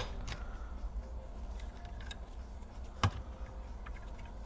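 Plastic clips of an HP EliteBook 2530p's hinge cover strip clicking as it is pried loose and lifted off by hand: a few faint ticks, then one sharp snap about three seconds in.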